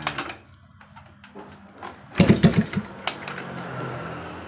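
Suzuki Crystal two-stroke engine turned over on the kick-starter with the clutch cover off: a quick run of low pulses about two seconds in, then a steady low hum that fades. The kick now catches instead of slipping, with the clutch pressure plate and its ring refitted in the right order.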